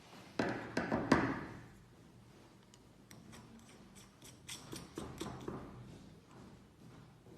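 Irregular clicks and knocks of small hard parts being handled. A cluster of sharper knocks comes in the first second or so, then lighter clicks around the middle.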